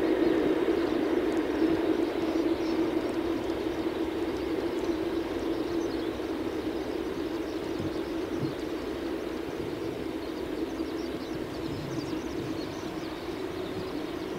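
Boeing 747-8F taxiing, its four GEnx-2B turbofans at taxi idle giving a steady jet drone that slowly fades as the aircraft moves away.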